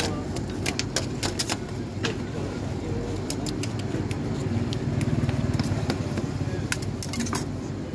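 Metal spatulas scraping and tapping on the stainless-steel cold plate of a rolled-ice-cream pan as chocolate ice cream is chopped and spread: a string of sharp irregular clicks over a steady low hum.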